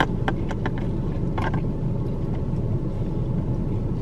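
Steady low rumble of a car with its engine running, heard inside the cabin, with a few faint clicks and a short sip through a straw about one and a half seconds in.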